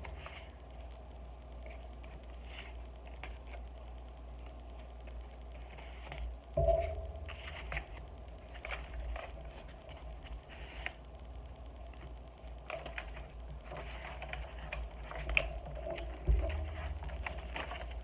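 Pages of a handmade paper junk journal being turned and handled: soft paper rustling and light taps and clicks, with two louder thumps, one about seven seconds in and one near the end, over a steady low hum.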